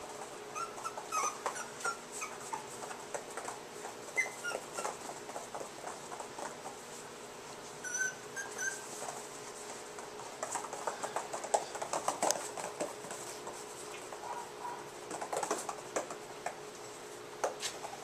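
Chinese Crested puppies playing: claws and paws patter and click on the floor in quick irregular taps, with a few short, high puppy whimpers.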